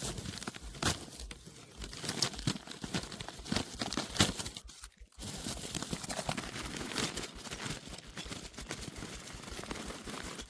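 Packed snow crunching and scraping in a run of irregular sharp crunches, with a brief pause about halfway through.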